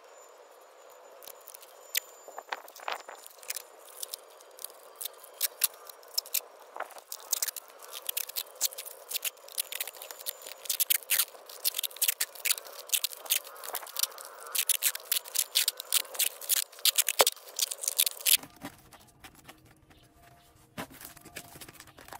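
Clear adhesive tape being pulled off its roll and wrapped around a plastic mesh basket: a long run of quick, irregular crackling rips that stops a few seconds before the end.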